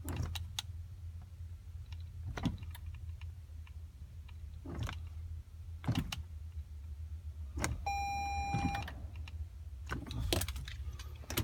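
Sharp clicks every second or two and one short electronic beep about eight seconds in, over a low steady hum, from a 2016 Toyota Highlander that will not start.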